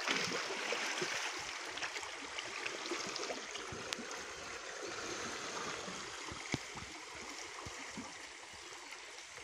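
Fast-flowing river water rushing over a shallow bed, a steady wash with a few sharp clicks, growing a little quieter toward the end.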